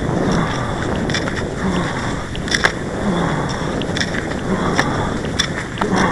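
Cross-country skis scraping and gliding over groomed snow in a stride rhythm, with sharp clicks of the pole tips planting in the snow, over a rumble of wind on the microphone.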